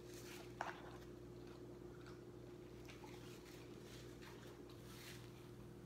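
Faint chewing of a mouthful of salad greens, soft wet mouth sounds over a low steady hum, with one sharp click about half a second in.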